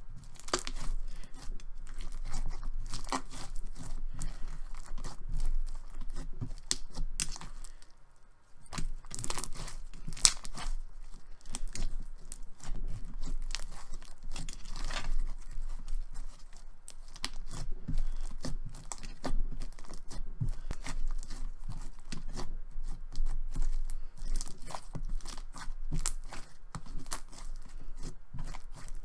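Clear fishbowl slime being squished and stretched by hand, its plastic fishbowl beads giving dense, irregular crunchy crackles and pops, with a brief lull about eight seconds in.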